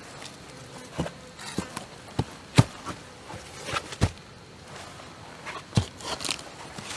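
Footsteps on a rainforest trail's soil and leaf litter: about eight uneven steps, some with a dry rustle of leaves. The heaviest steps fall about two and a half and four seconds in.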